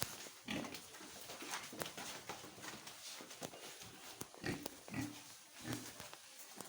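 Pigs grunting: several short grunts at irregular intervals, with scattered light clicks and knocks between them.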